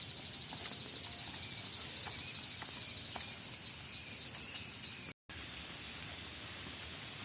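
A chorus of forest insects, crickets or cicadas, making a steady, rapidly pulsing high-pitched trill. It briefly cuts out about five seconds in and resumes unchanged.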